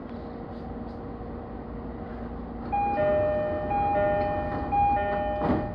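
Train standing at the platform, its equipment humming steadily, while an electronic chime sounds from about a third of the way in: two pitches alternating, repeated several times, the departure signal before the doors close. A short burst of noise cuts in just at the end.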